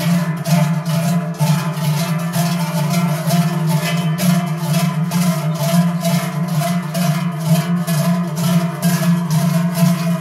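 Large cowbells swung by parade walkers, clanging steadily and in rhythm at about three strokes a second, with a humming ring sustained between the strokes.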